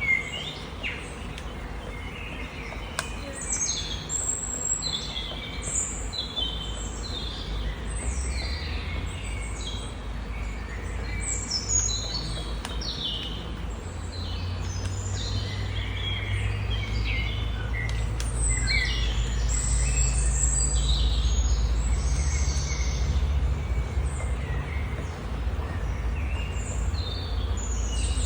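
Small birds chirping and singing, many short descending notes, over a low rumble of wind that grows stronger about a third of the way in. A few faint single taps stand out, but there is no steady run of pecking.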